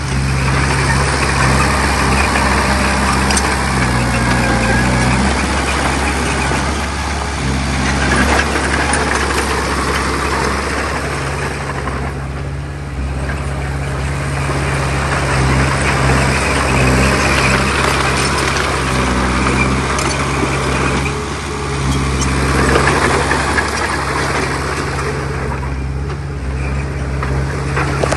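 Heavy earthmoving machine's diesel engine running, with a rough, steady noise over it that dips briefly about twelve seconds in and again near twenty-one and twenty-six seconds.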